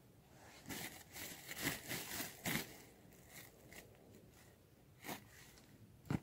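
Hands scraping and crumbling dry soil among stones: a run of gritty scrapes and rustles in the first few seconds, fainter ones after, then a sharp knock about six seconds in as a flat stone is set in place.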